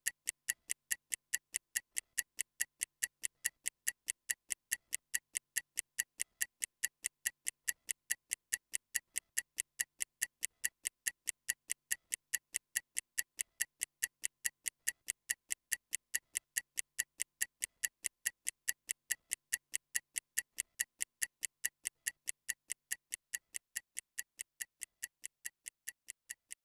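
Stopwatch ticking steadily, about three sharp ticks a second, timing a 30-second recovery interval.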